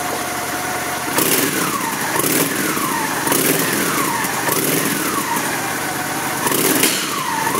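2003 Honda Shadow Spirit 750's carbureted, liquid-cooled V-twin idling, then from about a second in revved again and again, the pitch climbing and falling back with each blip of the throttle.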